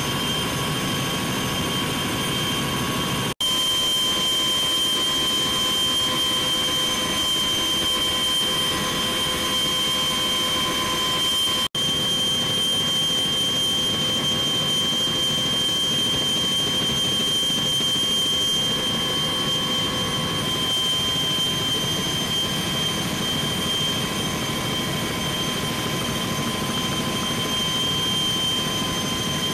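CH-46E Sea Knight twin-turbine, tandem-rotor helicopters in flight, heard from aboard one: steady rotor and engine noise with a high turbine whine. The sound drops out twice, briefly.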